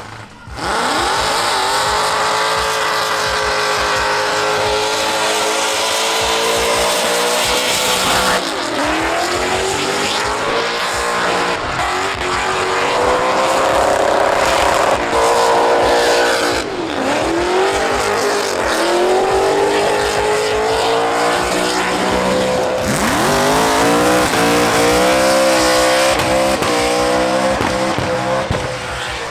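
Burnout car's engine held at high revs, the pitch dropping sharply and climbing back three times, over the steady hiss of spinning tyres.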